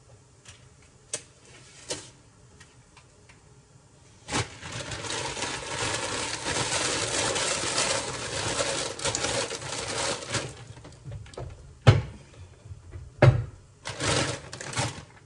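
Plastic bag of green beans crinkling as it is handled and opened. There is a long stretch of loud crinkling a few seconds in, then a few short sharp crackles near the end.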